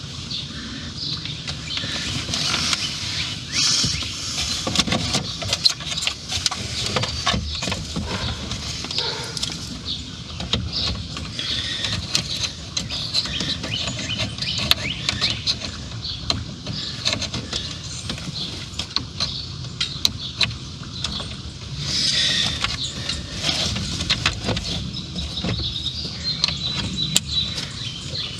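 Plastic center-dash trim panels of a 2016 Ford F-150 being handled and pressed back into place, a continuous run of irregular clicks, knocks and rustling.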